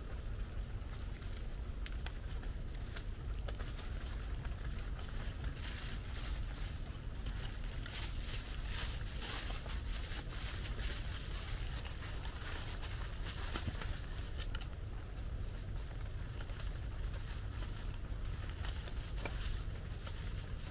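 Heavy rain pattering on plastic sheeting: a steady, dense patter of many small drop strikes over a low rumble.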